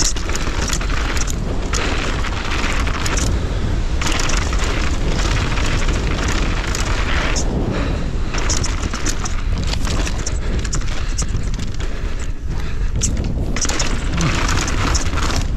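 Wind buffeting an action camera's microphone on a mountain bike descending fast, a heavy steady rumble, with the tyres hissing and crunching over dirt and loose rock in surges.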